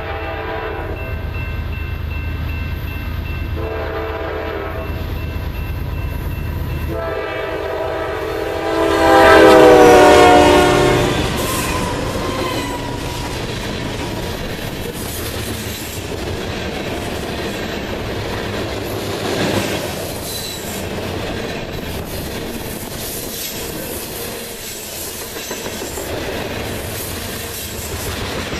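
Diesel freight locomotive sounding its horn in several blasts as it approaches, the last one long and loudest, its pitch dropping as the locomotive passes about ten seconds in. Then the covered hopper cars of a grain train rumble and clack steadily over the rail joints.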